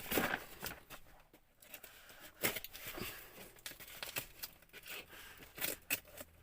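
Parcel packaging being torn open and crinkled by hand, in a run of irregular rustles and sharp crackles.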